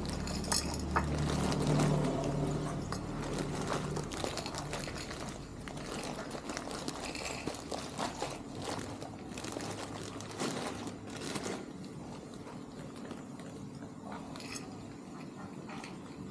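Dry cat kibble pouring from a plastic bag onto a plate, with the bag crinkling and a scatter of small clicks as the pellets land.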